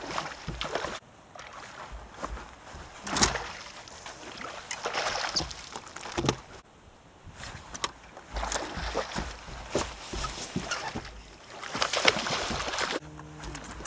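Hooked largemouth bass thrashing and splashing at the water's surface beside a boat during the fight, in a run of irregular sudden splashes; the loudest come about three seconds in and again about twelve seconds in. A brief low steady hum comes near the end.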